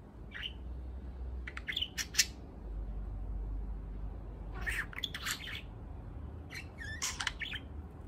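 Young male budgerigar chirping and chattering in short bursts: a single chirp near the start, then clusters of quick, sharp, warbling calls about two, five and seven seconds in.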